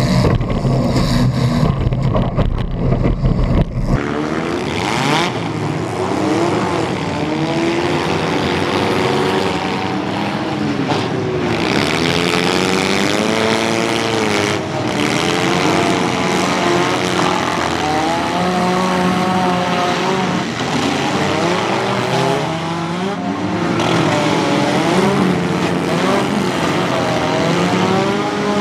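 Several demolition derby car engines revving hard at once, their pitches rising and falling as the cars accelerate and back off, with a few short bangs. For the first few seconds a single engine, heard from inside the car, gives a heavy, rough rumble.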